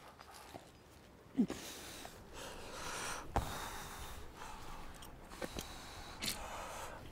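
A rock climber's hard breathing and a few short, sharp exhales as he pulls through a move, with a few small knocks and clicks.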